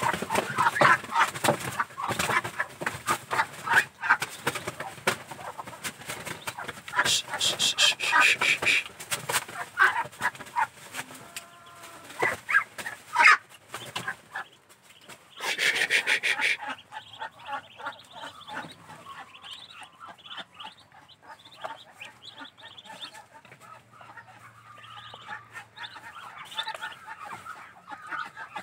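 A flock of ducklings peeping continuously in many overlapping high calls. Loud noisy bursts come about a quarter of the way in and again just past halfway, and the peeping is quieter in the second half.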